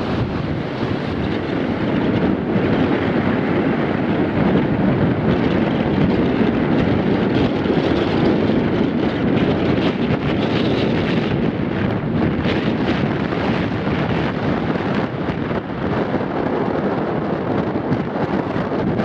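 Strong force-6 wind blowing across the microphone, a steady, loud rumbling noise with no break.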